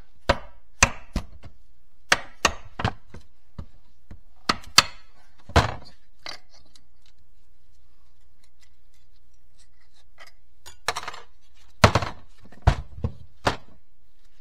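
Sharp knocks of a hammer on a stuck input bearing in a GM Getrag HM290 five-speed transmission case, struck in quick groups of two or three, with a pause of about five seconds midway. The bearing being knocked loose has failed and is coming apart.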